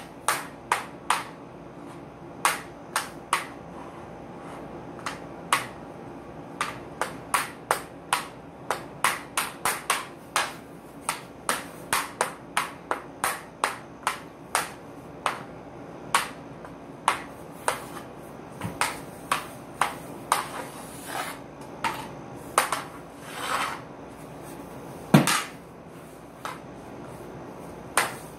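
Hockey stick blade knocking a stickhandling ball back and forth on a hard floor: a long run of sharp, irregular clacks, one or two a second and sometimes in quick runs, with a couple of brief scrapes about two-thirds through and one louder clack near the end.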